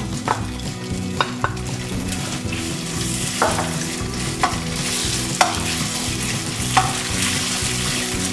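Chicken strips frying in oil in a wok, a steady sizzle that grows stronger after a couple of seconds, with a utensil scraping and tapping against the wok every second or so as they are stirred gently.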